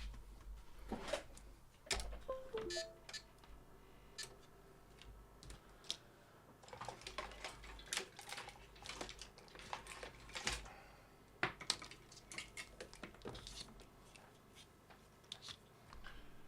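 Irregular light clicks and taps, clustered at times, of small tools and parts being handled while components of a body control module are checked one by one.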